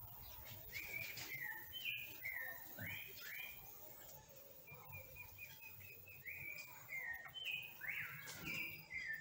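A songbird singing a string of varied chirped and slurred phrases, several of them repeated, with a quick run of short notes about halfway through.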